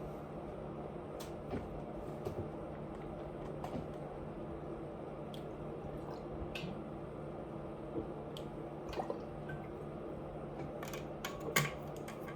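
Scattered soft wet smacks and clicks of chewing and mouth sounds while eating, a few a second at most, with the sharpest one near the end, over a steady low hum.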